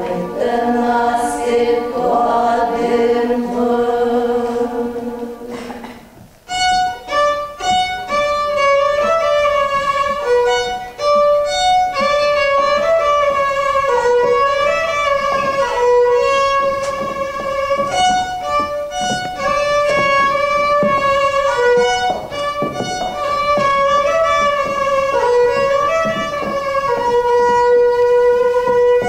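Sustained notes that fade out about six seconds in, then a fiddle plays a fast folk dance tune with quick runs of notes.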